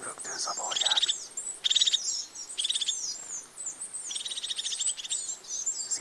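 Small songbirds chirping and twittering in high, quick, gliding notes, broken by several short rapid trills.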